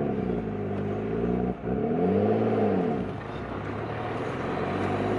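Nissan Skyline R32's engine heard from inside the cabin while driving. It revs up and back down twice, with a short break about one and a half seconds in, then runs more steadily.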